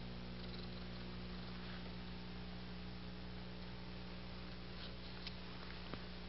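Steady low electrical hum, with a couple of faint ticks about five and six seconds in.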